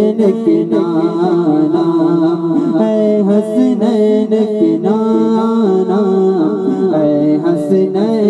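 A man singing an Urdu naat into a microphone: a continuous melodic passage with no clear words, the melody stepping up and down without a break.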